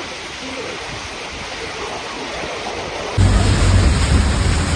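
Steady rushing noise of floodwater and heavy rain. About three seconds in it jumps to a louder scene: floodwater spurting in through a bus door onto the floor, over a steady low rumble.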